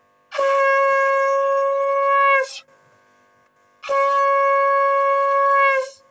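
Conch shell (shankha) blown twice, each a steady horn-like tone about two seconds long that dips slightly in pitch as it ends.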